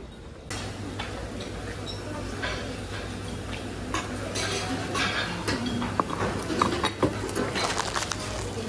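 Dishes and cutlery clinking in quick, irregular light knocks over a steady low hum.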